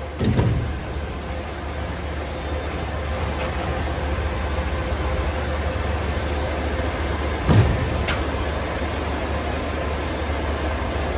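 Steady hum of running machinery, with two dull knocks from hands-on work on the air handler's belt drive, the second followed by a sharp click.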